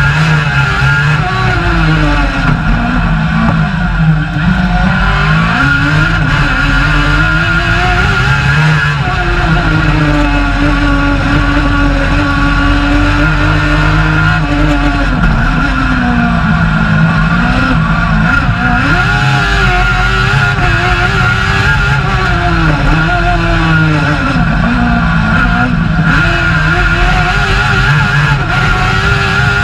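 Suzuki GSX-R1000 K8 1000 cc inline-four motorcycle engine in a Fićo race car, heard from inside the cabin at racing speed. The revs climb and drop again and again through gear changes, hold steady and high for a few seconds near the middle, then rise and fall quickly through a run of bends.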